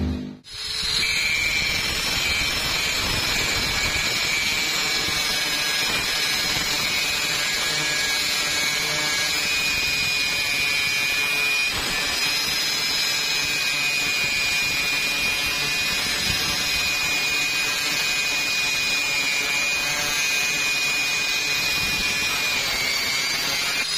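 Angle grinder with an abrasive disc grinding rusty steel plate: a steady high whine as the disc works against the metal, starting about half a second in.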